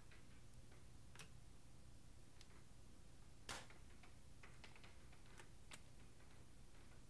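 Near silence with faint scattered clicks and ticks from handling the Weihrauch HW95 break-barrel air rifle, with one sharper click about three and a half seconds in.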